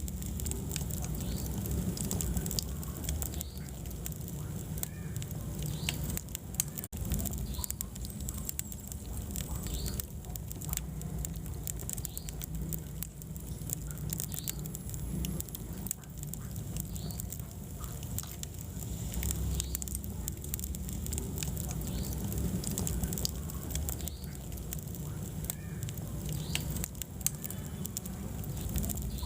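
Wood fire burning in a fireplace, with a low rumble of flames under frequent sharp crackles and pops.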